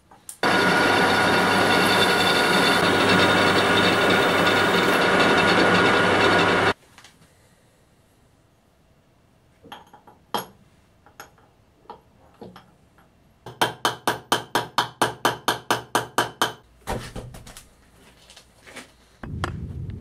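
A power tool runs steadily for about six seconds, then small metal parts clatter as they are handled. Then comes a quick, even run of about fourteen sharp knocks, some four a second, and a few single knocks after it.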